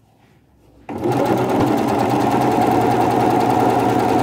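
Domestic electric sewing machine starting suddenly about a second in and then running steadily at speed, stitching a seam from edge to edge of the fabric.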